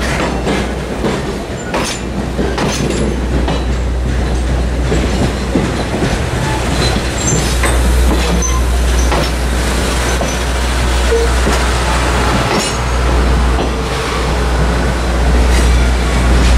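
Passenger coaches of a steam excursion train rolling past close by. There is a steady heavy rumble, with the wheels clacking over the rail joints and a few brief, faint flange squeals.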